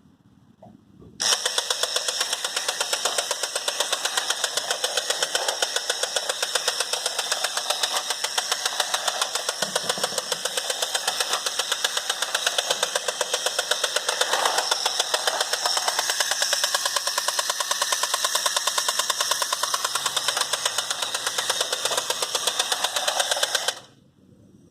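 Battery-operated tin toy space bulldozer running: its small electric motor and tin gearwork make a loud, rapid, even rattling buzz that switches on about a second in and cuts off suddenly near the end.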